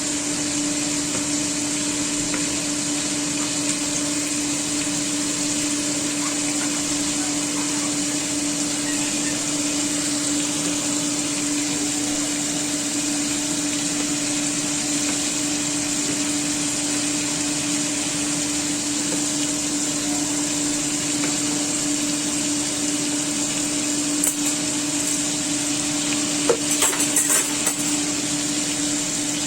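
A steady motor hum with one strong held tone, with a click and then a short clatter of knocks near the end.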